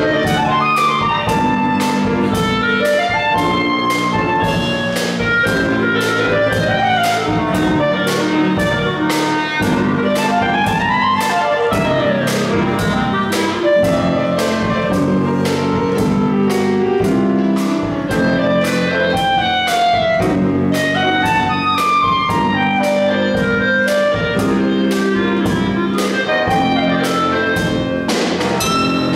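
Live jazz combo playing: clarinet leading with quick rising and falling runs over piano, bass guitar and drum kit, the cymbal keeping a steady beat of about two strokes a second.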